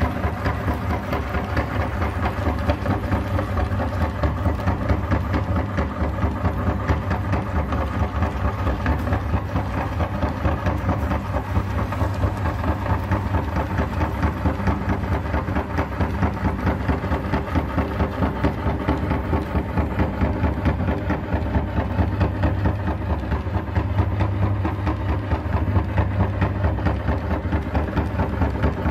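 Electric meat grinder running under load as it grinds ice cream through its auger and cutting plate. The motor makes a steady hum that pulses evenly.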